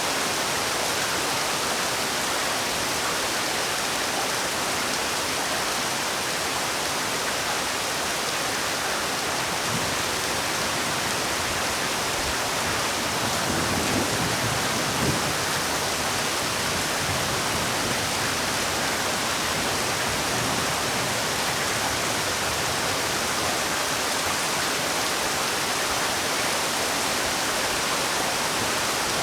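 Heavy rain falling steadily, a dense even hiss of drops with a few slightly louder low patters partway through.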